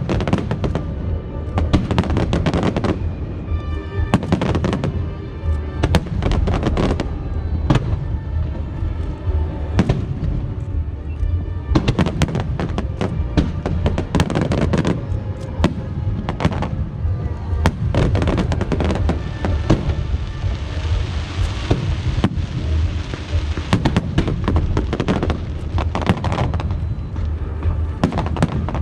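Aerial fireworks bursting in rapid succession, with many sharp bangs and deep booms, and music playing along underneath. About two-thirds of the way through, a stretch of hissing crackle rises over the bursts.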